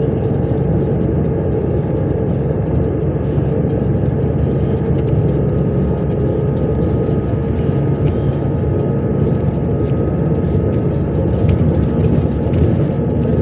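MAZ 103.562 bus heard from inside the passenger cabin, cruising at a steady speed: an even engine drone with tyre and road noise, and a faint steady whine above it.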